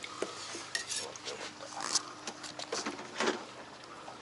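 Water sloshing and splashing in a plastic bucket as a hand works a freshly caught hairtail in it, with several sharp knocks and clicks against the bucket.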